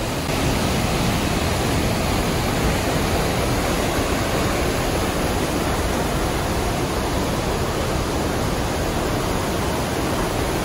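Fast-flowing river water rushing around boulders in rapids: a steady, loud rush of whitewater.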